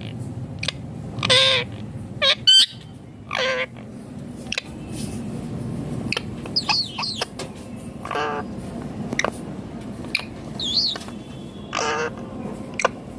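Indian ringneck parakeet squawking: about four loud, short harsh calls a few seconds apart, with brief chirps and whistles between them.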